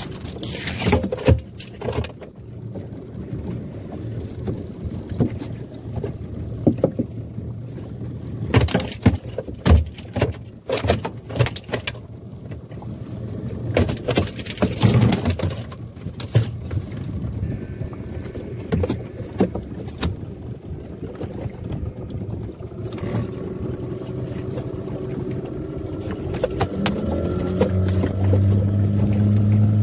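Yamaha 15 hp outboard motor running steadily on a small fibreglass boat, with irregular sharp knocks and thumps in the first half as a tuna is landed on deck. Near the end the engine speeds up and runs louder.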